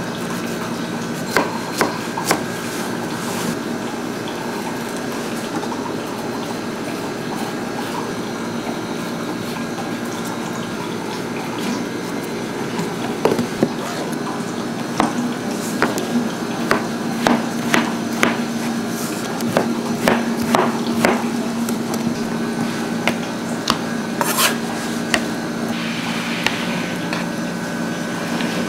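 Kitchen food preparation: scattered clinks and knocks of utensils and dishes over a steady machine hum. The knocks are few at first and come thick and fast through the second half.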